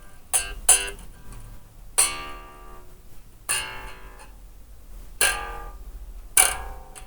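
Old strings on a five-string bass guitar plucked one at a time, about six notes, each ringing and fading out. The notes are being checked for tuning, and the low B string sounds a bit flat and "farty".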